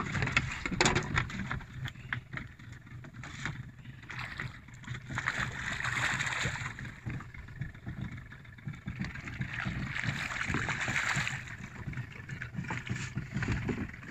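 Water splashing and sloshing against the side of a small boat as a fish is brought to a landing net, louder in two stretches about five and ten seconds in.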